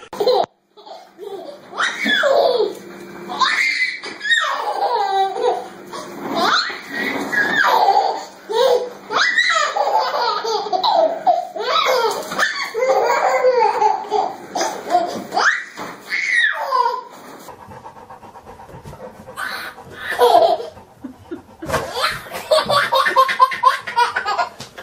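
Babies laughing hard in repeated peals of belly laughter, with a quieter stretch about two-thirds of the way through.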